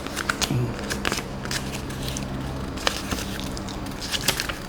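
Irregular crackling and small clicks of things being handled, over a faint low steady hum that comes in about half a second in.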